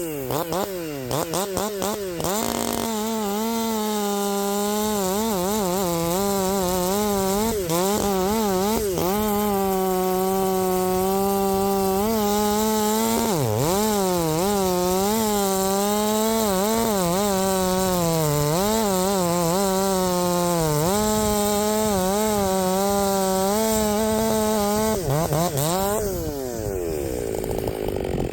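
Ported Stihl MS400 two-stroke chainsaw, blipped up and down at first, then held at high revs with a few brief dips before dropping back off throttle near the end.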